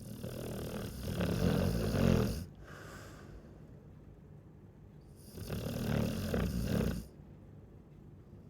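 Chow chow dog snoring in its sleep: two long snores about five seconds apart, with a fainter breath just after the first.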